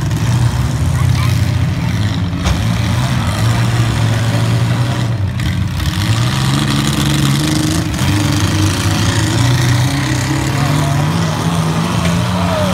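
Engines of several demolition-derby compact cars running and revving unevenly, their pitch rising and falling as the cars maneuver.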